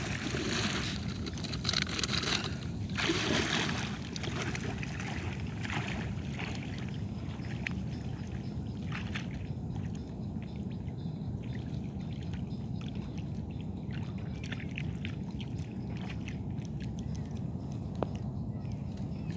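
Shallow seawater sloshing and splashing around wading legs and hands, loudest in the first few seconds, then settling to fainter small splashes and drips.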